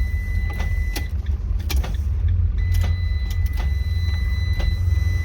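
Scattered clicks and a steady high-pitched tone over a low rumble while the key is turned on a 2014 Ram ProMaster. The starter does not engage and the engine does not crank.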